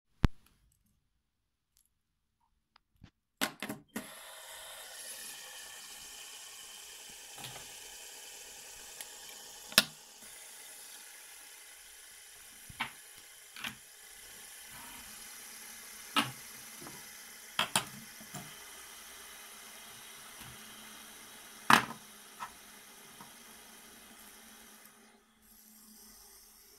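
A steady whirring from a small light-up toy in motion on a hard table, with sharp clicks and knocks every few seconds as the toys are handled and set down. The whirring starts after a few knocks near the beginning and stops a second or two before the end.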